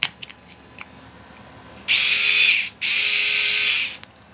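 Small single-speed Vessel cordless electric screwdriver running free with a steady motor whine. It runs in two bursts of about a second each, with a short break between, after a few faint handling clicks.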